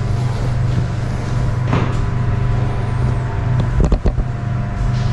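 Steady low engine hum, with a couple of sharp clicks about four seconds in.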